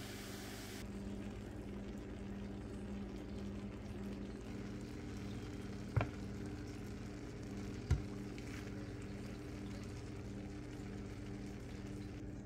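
Eggs sizzling faintly in a frying pan over a steady low hum. A metal spoon clinks sharply on a ceramic plate twice, about halfway through and again two seconds later, as the eggs are served.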